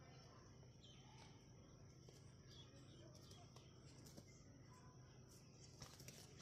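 Faint scuffling of two Aseel hens fighting, with a brief burst of wing flapping about six seconds in.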